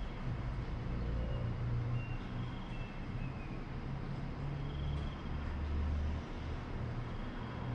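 Steady rain noise with a low rumble underneath that swells and fades every second or so.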